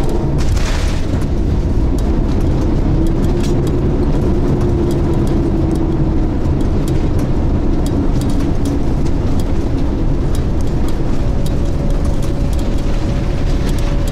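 Boeing 787-9 jet engine at high power during a runway roll, heard inside the cabin: a loud, steady roar with a deep rumble underneath.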